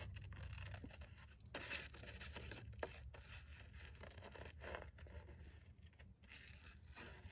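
Faint snips of small scissors cutting paper, with paper rustling as the cutout is turned in the hand between cuts.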